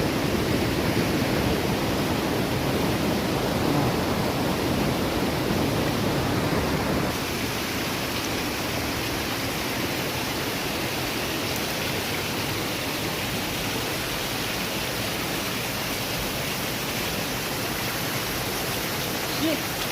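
Waterfall water rushing and splashing in a steady roar of noise, a little quieter from about seven seconds in.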